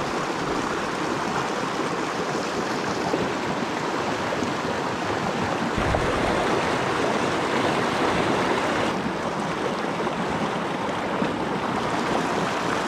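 Small mountain creek rushing over rocks and small rapids: a steady, unbroken rush of whitewater.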